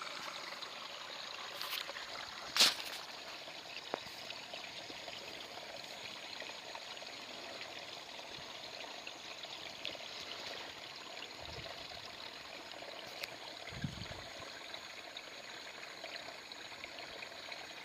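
Small stream trickling and flowing steadily, with one sharp click about two and a half seconds in, a few fainter ticks, and a couple of soft low thuds later on.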